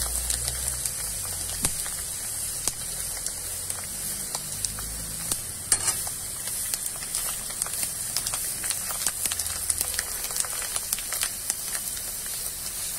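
Rice grains sizzling in hot oil in a pan: a steady frying hiss with frequent sharp crackles and pops, while a metal spoon stirs them.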